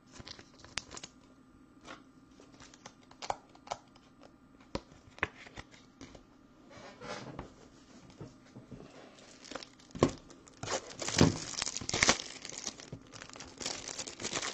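Scattered light clicks and taps of cards and plastic holders being handled. From about ten seconds in comes a louder run of plastic wrap crinkling and tearing, from a shrink-wrapped pack of Ultra Pro toploaders being handled and opened.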